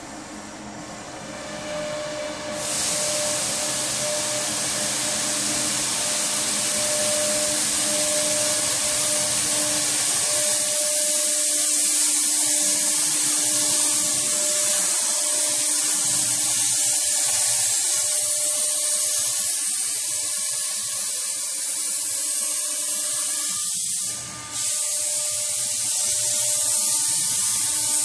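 CNC router cutting grooves in pink foam insulation board: a loud, steady high-pitched whine and hiss that comes up about two and a half seconds in, dipping briefly near the end.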